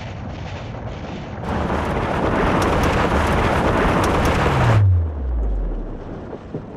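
Electric pickup truck driving off-road, with tyre and wind noise. Partway through, a much louder rushing noise cuts in and stops abruptly, and a low hum falls steadily in pitch as it ends.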